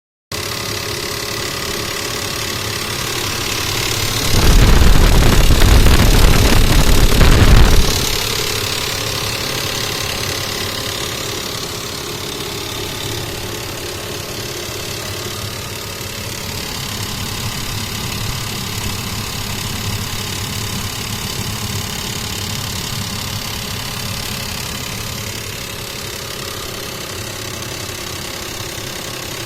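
Mitsubishi Montero's 6G75 3.8-litre V6 idling with a knock, which the owner suspects comes from the hydraulic timing-belt tensioner. About four seconds in, a much louder rumbling noise covers it for some four seconds.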